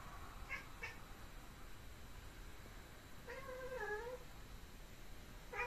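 Domestic cat chattering on alert. Two faint clicks come about half a second in, then a wavering chirping call of about a second in the middle, and a short chirp near the end.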